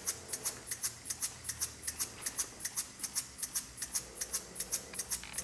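Three small single-acting spool valve model steam engines running on low-pressure compressed air, their exhaust puffs making a quick, uneven ticking of sharp hissy pulses, several a second.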